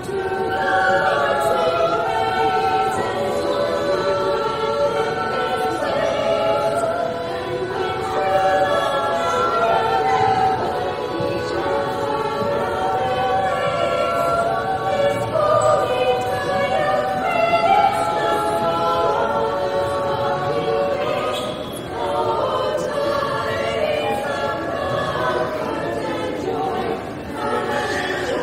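A vocal group singing in harmony, several voices holding sustained notes together, with short breaks between phrases about two-thirds of the way through and near the end.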